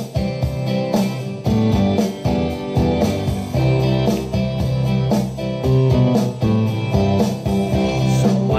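Instrumental intro of a rock song played from a recording: strummed guitar over bass, with a steady beat.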